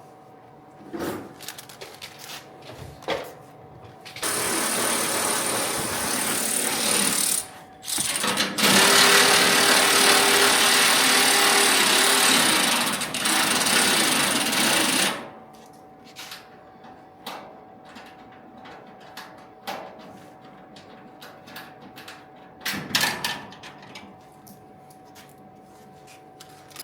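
Pneumatic air tool running in two long bursts, about three seconds and then about six seconds, as bolts are run off the fender, with clanks and clicks of metal parts and tools around them.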